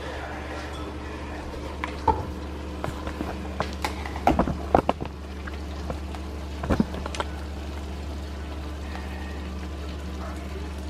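A few sharp knocks and clinks of cookware, a cluster of them about four to five seconds in and another near seven seconds, over a steady low kitchen hum.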